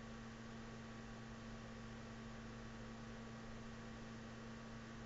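Steady low hum with faint hiss under it: the recording's background noise, with nothing else sounding.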